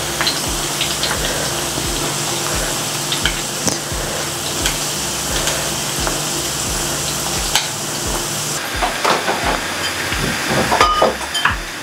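Chana dal pakoda and curry leaves deep-frying in hot oil in a stainless steel pan: a steady sizzle and bubbling. Now and then a stick taps lightly against the fritters and the pan as they are moved.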